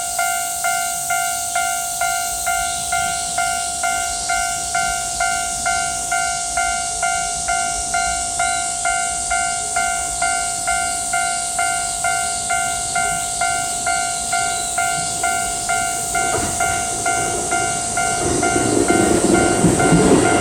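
Japanese electronic level-crossing bell dinging in a fast, even rhythm, over a steady high hiss. About three-quarters of the way through, a train's running noise starts to build, growing much louder near the end as it reaches the crossing.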